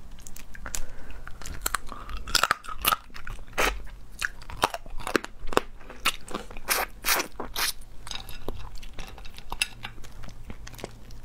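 Cooked shrimp shells crunching and cracking as they are broken apart by hand and bitten, with chewing. There is a quick run of sharp cracks, thickest in the middle of the stretch.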